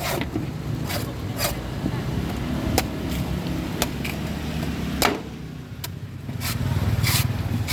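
A coconut being peeled, its husk struck or cut in sharp knocks, about seven at uneven intervals, over a steady low rumble.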